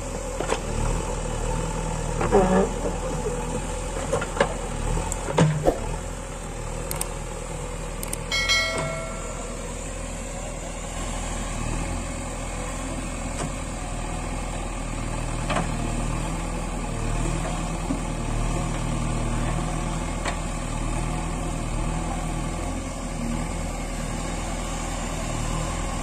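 JCB 3DX backhoe loader's diesel engine running steadily while the backhoe arm digs soil. There are a few sharp knocks from the bucket and arm in the first six seconds.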